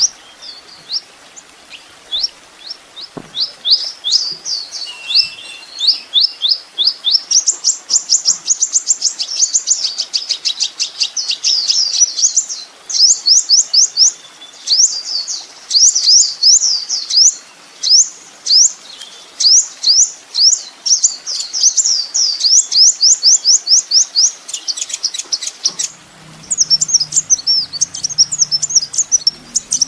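Sunbird (kolibri ninja) singing: rapid runs of short, high, sweeping chirps that start sparse and grow dense and fast about eight seconds in, with a brief pause near the end before the runs resume.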